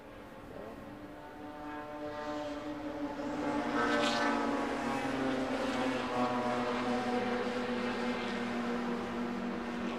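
Tiny electric motors and gears of Kyosho dNaNo 1/32 RC touring cars whining as the cars race round the track. The sound grows louder and peaks about four seconds in as a car passes close, then stays steady.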